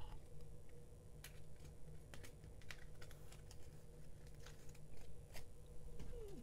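Faint, scattered clicks and taps of game cards being handled, picked up and set down on the table, over a low steady hum.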